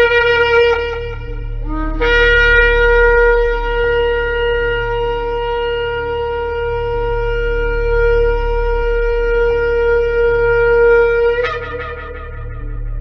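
Shofar blasts. A blast ends about two seconds in, and after a brief lower note a single long blast is held steady for about nine seconds before it cracks upward and breaks off near the end. A steady low hum runs underneath.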